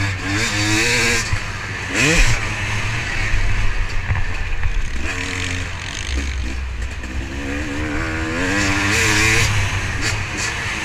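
Motocross bike's engine heard from a camera mounted on the bike, revving up and easing off again and again as it accelerates along the dirt track, its pitch climbing in several sweeps, with a steady rush of wind and track noise.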